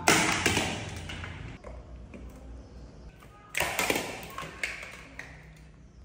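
A plastic motorcycle helmet knocking hard on a tiled floor, its clatter fading over a second or so. About three and a half seconds in comes a short cluster of knocks and taps.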